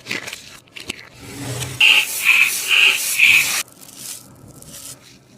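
A sticky taba squishy being handled and pressed, scraping and rubbing, then a louder sticky crackling stretch with four short squeaks in quick succession that stops abruptly.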